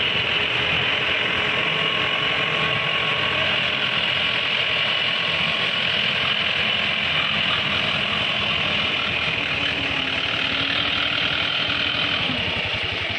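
Mahindra 595 DI Turbo tractor's diesel engine running steadily while pulling a loaded soil trailer at low speed.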